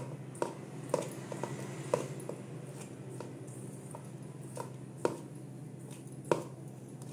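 Hand rubbing oil into dry flour in a stainless-steel bowl, a faint rustle broken by scattered light clicks as the hand knocks the steel. A steady low hum runs underneath.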